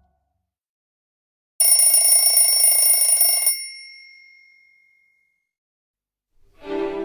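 Nokia 515 clock alert tone: a loud ringing burst of about two seconds with several steady high tones, which then rings away over about a second and a half.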